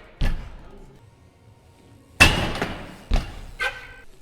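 BMX bike impacts echoing in a large hall: several heavy thuds, the loudest about two seconds in, with a brief ringing sound near the end.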